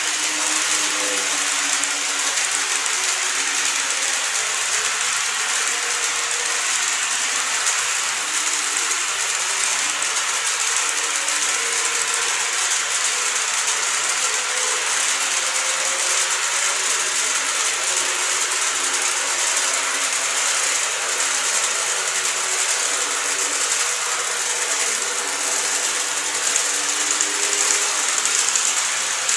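KATO E259 series Narita Express model train running on its track: a steady high-pitched mechanical whirr and clatter from its motor, gears and wheels on the rails.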